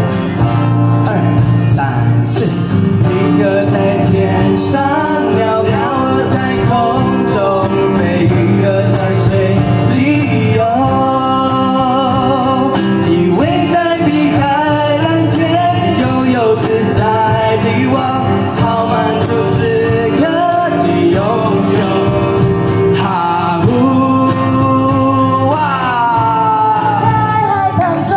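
Live acoustic band: singing over strummed acoustic guitars and ukuleles, with a cajón keeping the beat.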